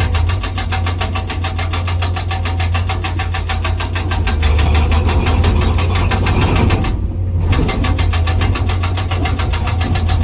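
Hydraulic breaker on a PC200 excavator hammering hard rock with rapid, even blows over the steady drone of the excavator's diesel engine. The hammering stops briefly about seven seconds in, then starts again.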